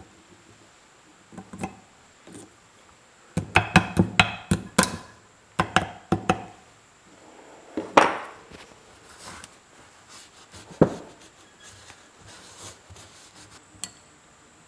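Hand tools and metal parts knocking and clacking on a wooden workbench. A quick cluster of sharp knocks comes about three and a half seconds in, followed by scattered single knocks, the loudest about eight seconds in, and lighter clicks near the end.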